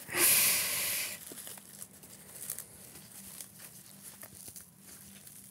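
A short loud scratchy rustle, like tearing or crinkling material, lasting about a second, then faint scattered ticks and rustles of materials being handled.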